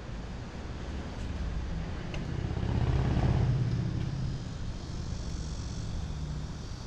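A passing vehicle: a low rumble that swells to a peak about three seconds in and then fades away.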